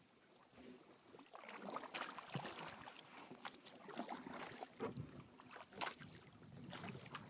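Water splashing and lapping against a sea kayak as it is paddled, in irregular strokes with a sharper splash about six seconds in.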